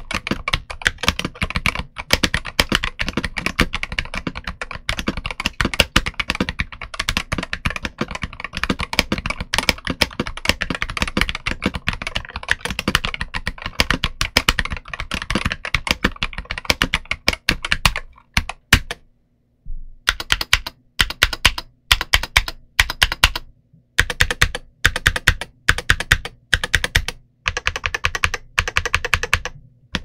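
Typing on a Gamakay TK75HE keyboard with magnetic Hall-effect switches: a fast, continuous run of keystrokes, then, after a brief pause about two-thirds of the way in, shorter runs of keystrokes with small gaps between them.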